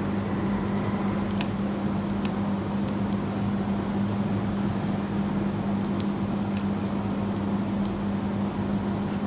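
A steady low hum, with a few faint light clicks of small handling noise and no multimeter beep.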